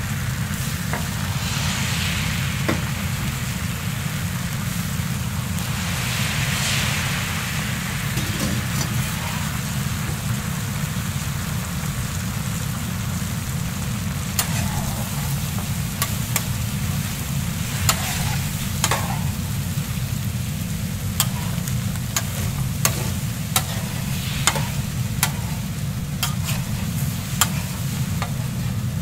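Beaten egg sizzling in oil on a steel flat-top griddle over a steady low hum. From about halfway through, sharp clicks and scrapes as a wide metal scraper works and folds the egg against the griddle.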